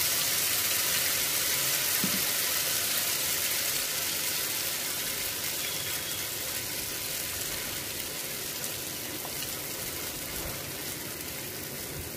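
Ghewar batter sizzling and frothing in hot ghee, a dense, steady sizzle that slowly eases as the froth settles and the lattice sets.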